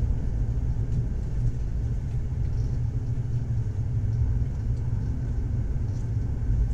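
Passenger train running, heard from inside the carriage as a steady low rumble with a few faint clicks.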